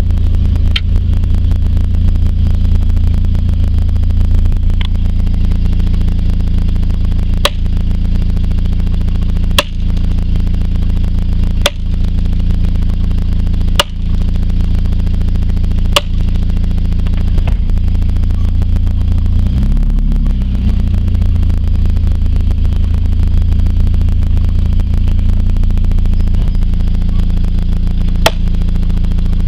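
A truck engine running steadily, heard from inside the cab, while a post pounder strikes wooden trellis posts: about nine sharp knocks, most of them about two seconds apart in the first two-thirds, and one more near the end.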